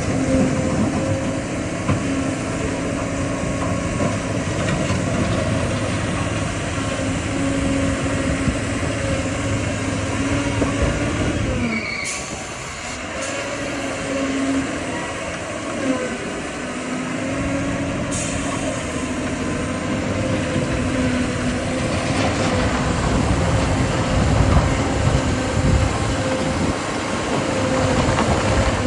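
Heavy diesel construction machinery, an excavator digging rocky ground, running steadily with its engine note wavering up and down. The machine eases off for a few seconds about halfway through.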